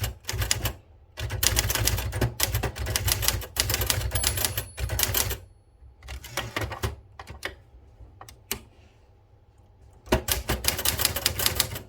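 Keys of a 1970 Citizen X3 manual typewriter being typed on, the typebars clacking against the paper. There are two long fast runs of strokes with scattered single strokes and a short pause between them.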